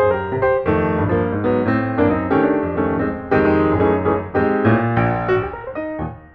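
Background piano music, a lively run of notes.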